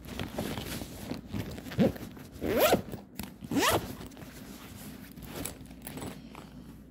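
A zipper pulled in three quick strokes, each a short rising zip, the middle one the loudest. Rustling and small clicks from handling come in between.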